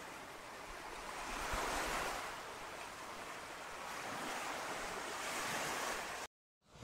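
Sea surf breaking and washing on a rocky shore, an even rushing that swells twice and then cuts off suddenly near the end.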